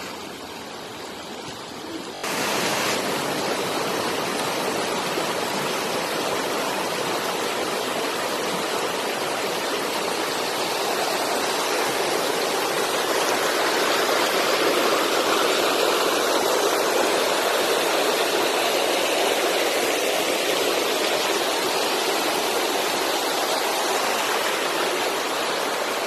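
Rushing water of a shallow rocky stream tumbling over stones: a steady rush that gets suddenly louder about two seconds in.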